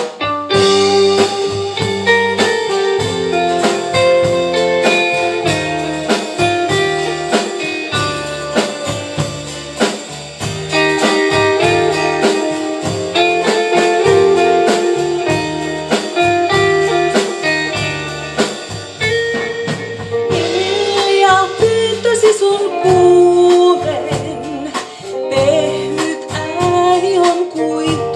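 Live band playing a rautalanka number, with twangy electric guitars, acoustic guitar, bass and drum kit. The music kicks in suddenly right at the start.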